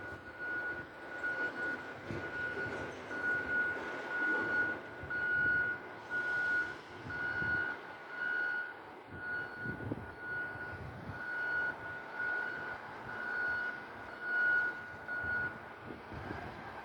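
Electronic warning alarm giving a regular series of short, high, single-pitch beeps, several a second apart, that stop near the end. There is uneven low rumbling noise underneath.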